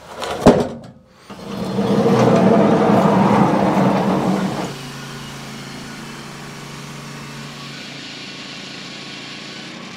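A sharp knock about half a second in. Then an engine runs loudly at higher speed for about three seconds and drops back to a steady idle.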